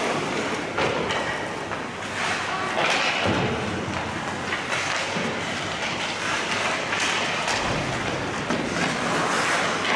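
Ice hockey play: skate blades scraping across the ice, with scattered knocks of sticks and puck.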